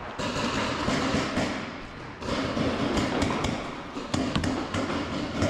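Footsteps on a concrete floor with rustling and knocking of worn gear, and a few sharp knocks about three and four seconds in.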